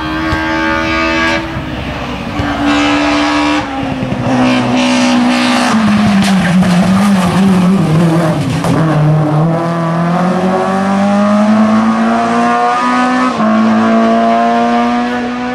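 BMW E30 M3 rally car's four-cylinder engine driven hard past the roadside. Its note steps with gear changes, drops in pitch about midway as the car slows and goes by, then climbs again as it accelerates away, with another upshift near the end.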